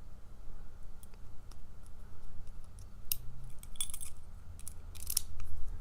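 Small metal clinks and jingles from handling a padlock and its keys, a few sharp clinks in the second half, as the lock is put back together and locked.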